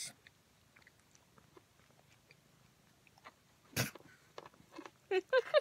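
A cat chewing and biting at a piece of bacon, faint scattered mouth clicks, with one sharp knock about four seconds in.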